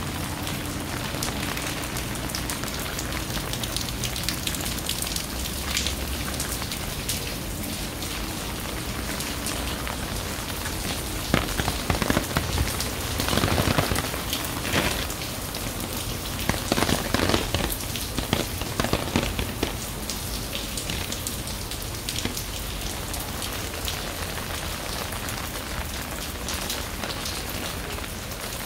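Steady rain falling and pattering on hard surfaces, with a run of louder, closer drops and taps in the middle of the stretch.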